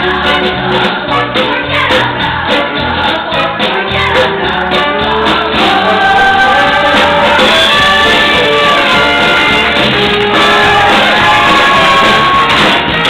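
Music with voices singing together in a choir-like sound. A regular beat runs through the first half, then gives way to long held notes.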